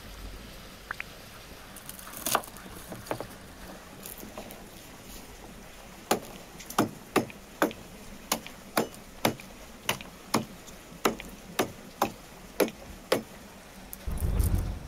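A knife cutting garlic cloves on a wooden cutting board: about fifteen sharp knocks in an even run, roughly two a second, starting about six seconds in, with one single knock earlier. A low rumble comes in near the end.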